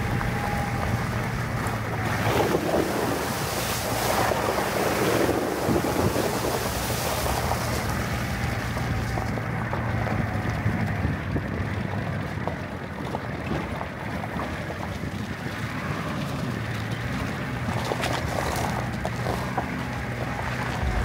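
Shallow stream rushing over pebbles and gravel, with wind buffeting the microphone and a low steady hum underneath. The rush is strongest in the first few seconds.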